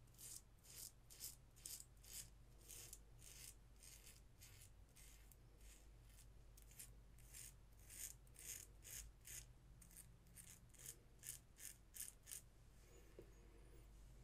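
Parker Semi Slant safety razor scraping across a lathered scalp in short, faint, regular strokes, about two to three a second, each one the rasp of the blade cutting through stubble. The strokes stop shortly before the end.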